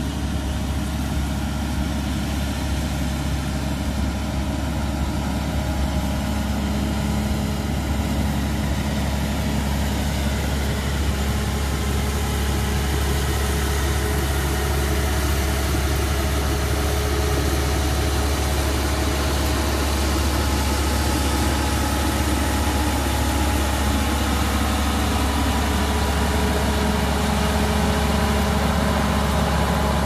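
Diesel engine of a Caterpillar motor grader running steadily as the machine works, pushing gravel with its blade; the drone slowly grows louder as the grader comes closer.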